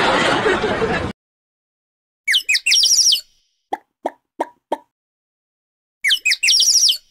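Edited sound effects: a loud noisy music passage cuts off about a second in. After a gap of dead silence comes a burst of quick bird-like chirps, then four short plops, and the chirps again near the end.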